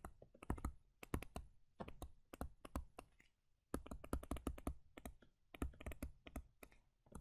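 A stylus tapping and ticking on a tablet screen while handwriting: a faint, irregular run of light clicks, pausing briefly about three seconds in.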